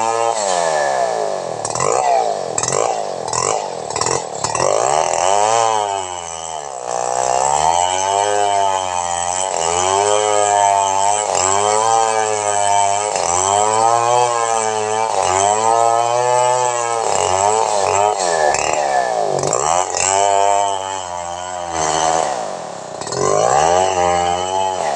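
Chainsaw running loud while it cuts lengthwise through a log. Its engine pitch sags under load and climbs back again, over and over, about every two seconds.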